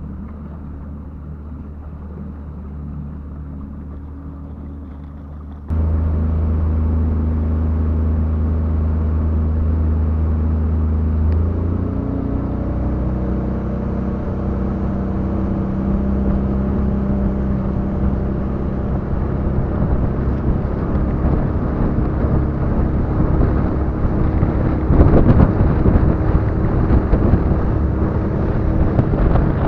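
Boat motor running steadily. It jumps louder about six seconds in, then climbs in pitch as it speeds up. Near the end, gusty wind noise on the microphone grows over it.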